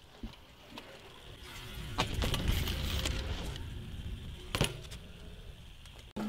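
BMX bike tyres rolling fast over a concrete ramp: a rumble that swells as the rider comes past and then fades. There is a sharp clack near the middle, and a louder metallic clack about four and a half seconds in as the bike lands back on the ramp.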